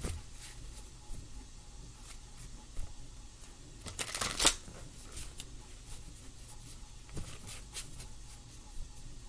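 A deck of tarot cards being shuffled by hand: scattered light flicks and taps of cards, with a dense riffle of cards about four seconds in, the loudest part.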